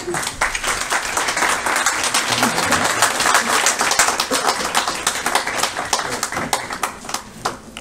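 Audience applause: many people clapping at once, dying away near the end.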